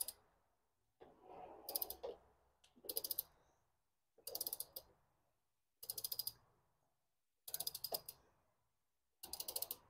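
Ratchet wrench clicking in short bursts, about one every second and a half, as it is swung back and forth on a 36 mm socket to loosen a cartridge oil filter housing cap.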